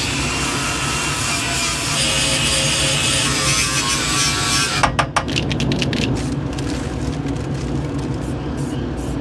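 Abrasion disc on a power drill scouring rust and paint off the kei truck's steel cab, a harsh whirring scrape that stops about five seconds in. A few sharp clicks follow, then rustling of brown paper being handled.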